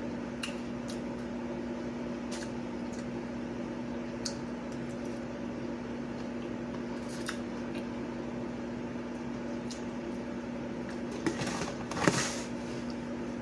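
Steady electrical hum in a small kitchen with a few faint fork clicks and eating sounds. About eleven to twelve seconds in comes a louder brief rustle and clatter as a plastic takeout container is pulled onto the table.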